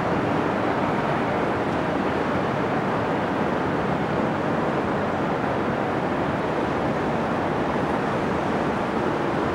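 Steady outdoor city ambience: an even rushing noise with no distinct events.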